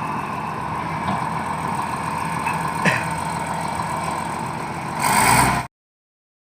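Komatsu D70LE bulldozer's diesel engine running steadily, getting louder briefly about five seconds in before the sound cuts off abruptly.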